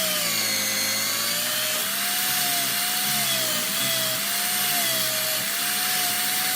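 Power tool with a rotary wire brush running against an aluminium engine side case, stripping off the paint. Its motor tone wavers slowly up and down over a steady scratchy hiss.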